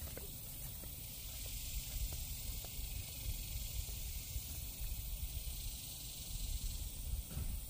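Wind rumbling and gusting on the microphone outdoors, under a steady high hiss.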